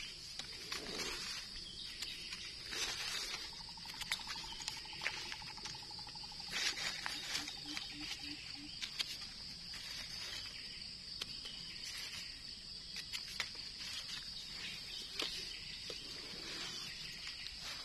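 Steady high-pitched insect buzz, with scattered short scrapes and rustles as a knife scrapes the dirt off a freshly picked mushroom over dry leaves.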